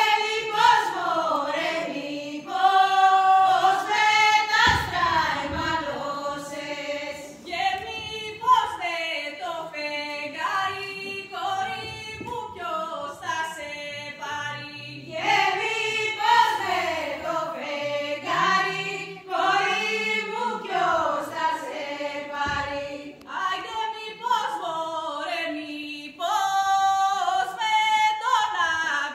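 A group of voices singing a Greek folk song of Epirus.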